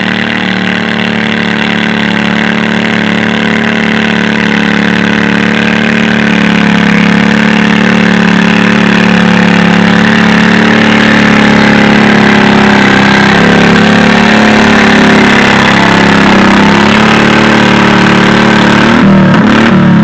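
Garden pulling tractor's engine running hard at steady high revs while dragging a weight-transfer sled, growing louder over the first several seconds as it comes closer. In the last few seconds the pitch wavers up and down under the load.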